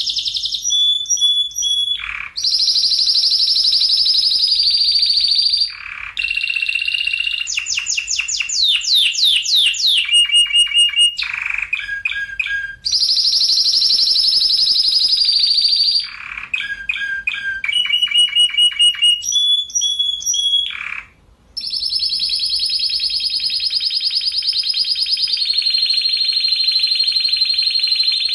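Spanish Timbrado canary singing: long, tight rolling trills held for several seconds at a time, alternating with short choppy phrases of repeated notes and a run of quick falling whistles. The song pauses briefly about three quarters of the way in.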